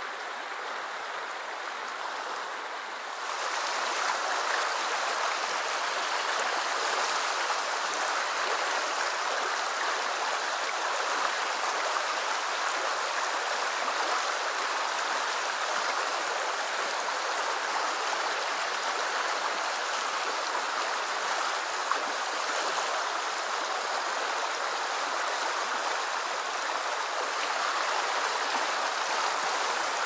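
Shallow forest river rushing over a stony riffle: a steady sound of running water, which gets louder and brighter about three seconds in.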